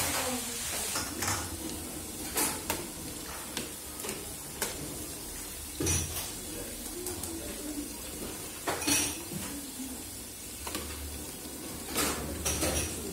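Squid rings and fish pieces deep-frying in a large aluminium pan of oil, with a steady hiss. A wire skimmer scrapes and clinks against the metal pan several times.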